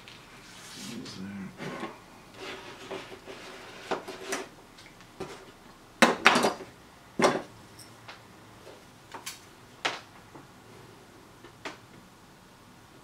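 Metal hand tools, pliers and shears, being handled and set down on a cutting mat: scattered clicks and clatters, the loudest pair about six seconds in, then a few lighter taps.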